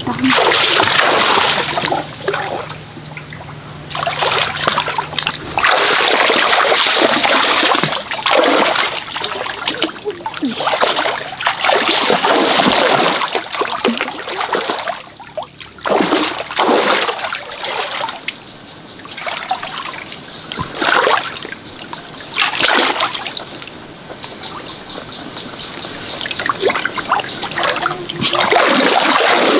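Stream water splashing and sloshing in irregular bursts a second or two long, with quieter trickling between them.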